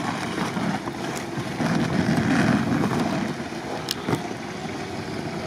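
Jeep Wrangler driving through deep snow: engine running under load with the hiss and crunch of the tyres in the snow. It grows louder about two seconds in, then fades as the Jeep moves off.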